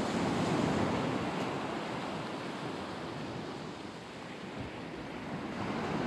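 Low surf breaking and washing onto a sandy beach, a steady rushing wash that swells in the first second, eases about four seconds in and builds again near the end.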